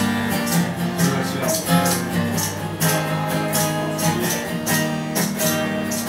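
Solo acoustic guitar strummed in a steady rhythm, about two strokes a second, playing the instrumental introduction of a folk song before the vocal comes in.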